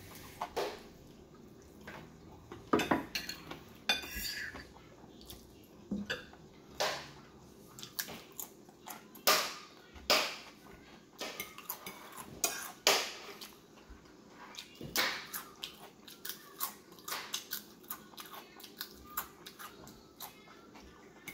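Close-up eating sounds: ridged potato chips crunching and chicken being chewed, with wet mouth noises and a fork clinking on a ceramic plate, as irregular sharp crackles and clicks.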